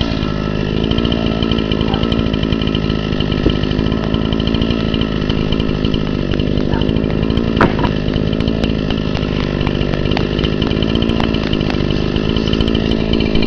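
Two-stroke chainsaw in a chainsaw mill, running steadily at full throttle while ripping a board from a log.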